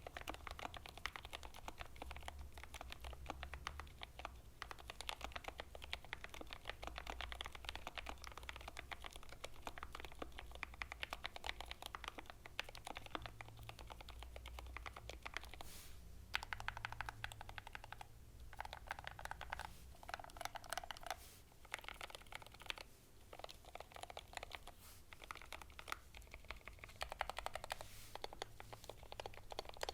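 Fast, continuous typing on a GMMK Pro mechanical keyboard with Gateron Ink V2 switches, keystrokes clacking in quick succession with a few short pauses.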